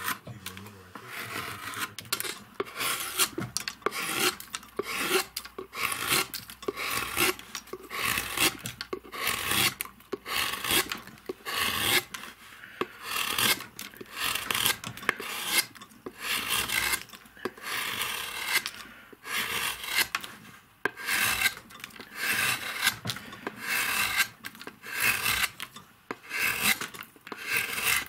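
Hand carving gouge paring wood: repeated short scraping cuts, about one or two a second, each lifting a curled shaving.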